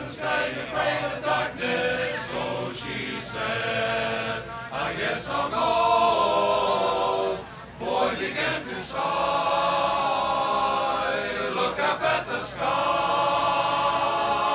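A men's chorus singing in harmony, holding long chords, with a short break between phrases about seven and a half seconds in.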